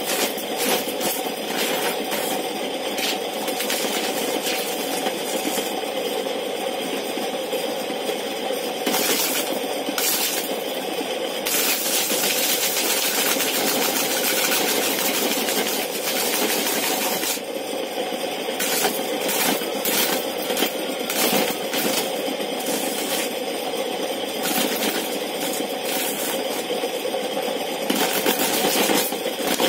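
Homemade motor-driven corn sheller: a spinning disc humming steadily while a corn cob is pressed against it, the kernels clattering and rattling as they are torn off. For several seconds in the middle the cob is held on the disc without a break, giving a continuous scraping, grinding noise.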